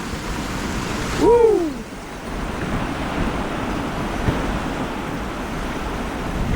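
Torrential thunderstorm rain pouring down with wind, a steady, even rush. A man whoops once about a second in.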